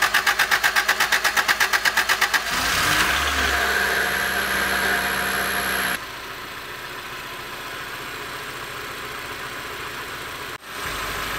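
Honda CRX's D-series four-cylinder engine cold-started: the starter cranks it with an even pulsing beat for about two and a half seconds, then it catches and runs at a fast idle. From about six seconds in it idles more quietly and steadily.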